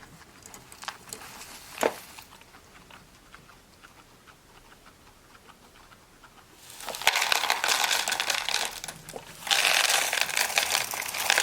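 Dried pea flakes being poured into a plastic storage box: a dry rattling rush in two pours, the first about seven seconds in and the second near the end, after a few light clicks.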